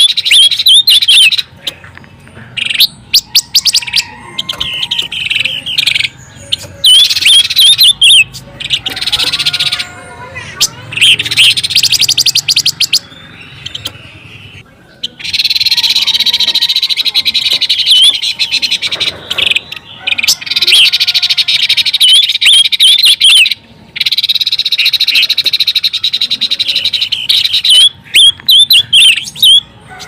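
Pancawarna bird song played as a bird-trapping lure call: bouts of rapid, high twittering chirps and trills, repeated several times with short breaks between them.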